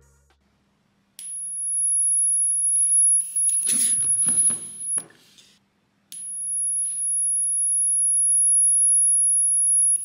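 A high-voltage generator module switched on, giving off a steady high-pitched whine. The whine is broken by a burst of hissing crackle near the middle, cuts out at about five seconds, and starts again about a second later.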